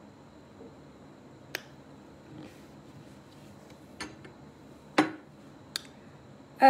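Faint room hum with four sharp, separate clicks of fingernails tapping a phone screen. Right at the end a loud, steady pitched tone begins.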